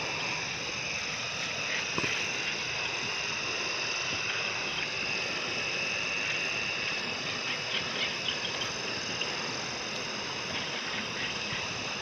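Steady night chorus of insects, several high, unbroken trilling tones over a constant hiss, with a few faint ticks about eight seconds in.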